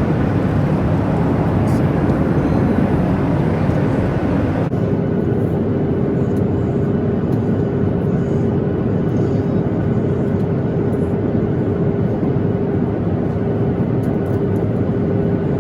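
Steady in-flight cabin noise of a Boeing 737-800 at cruise. About five seconds in, the sound turns duller and a steady hum joins it.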